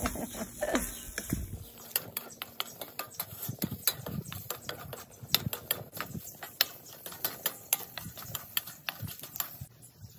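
Charcoal and wood-chip fire in a grill crackling, with irregular sharp pops and clicks starting about a second and a half in, under chicken drumsticks and mushrooms cooking on the grate.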